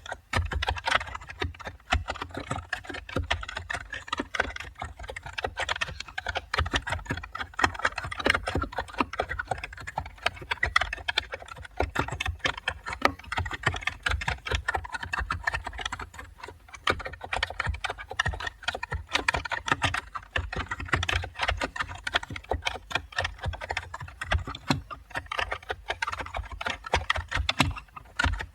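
Computer keyboard typing: a continuous, rapid stream of keystroke clicks, each with a soft low thud.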